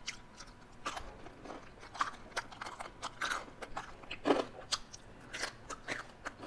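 A person biting and chewing crunchy food, with irregular crisp crunches, the loudest a little after the middle.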